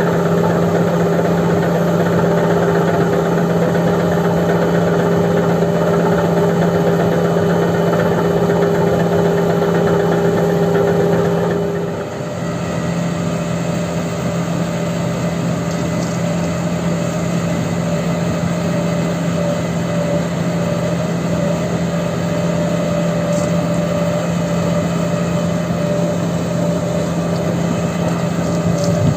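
Diesel engine running at a steady speed, with a brief dip in level about twelve seconds in.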